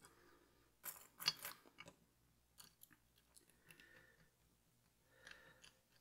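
Light metal clicks and scrapes of a lock pick and tension wrench working the pins of an ASSA V10 lock, with a cluster of sharper ticks about a second in.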